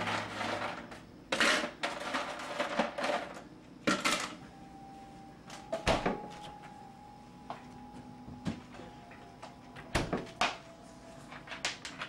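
Household handling sounds: a series of knocks, clicks and clatters with some rustling in the first few seconds, then a faint steady hum from about four and a half seconds in, under further scattered clicks and knocks.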